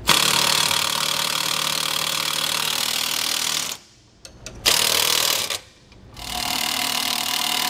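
Cordless impact wrench running on the bolts of a trailer's slipper spring box, driving them tight. It goes in three bursts: a long one of about three and a half seconds, a short one about four and a half seconds in, and a third starting about six seconds in.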